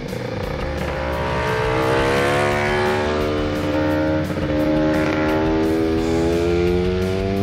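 Two-stroke scooter engine with a Malossi 221cc cylinder kit revving out under acceleration, its pitch rising, dipping at a gear change about four seconds in, then rising again. Background music plays underneath.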